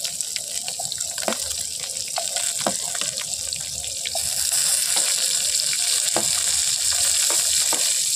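Chopped onion and tomato sizzling in hot oil and masala in a pan as they are scraped in off a steel plate with a knife, with light irregular clicks of the knife on the plate. The sizzle gets louder about four seconds in as more pieces go into the pan.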